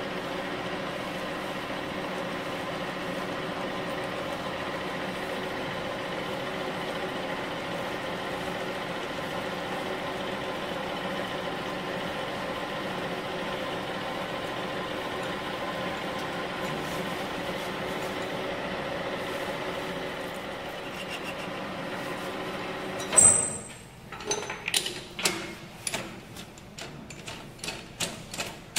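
Engine lathe running steadily with several fixed tones while the tool turns a metal chuck jaw. About 23 seconds in the running stops with a sudden loud clunk, followed by a string of sharp clicks and knocks.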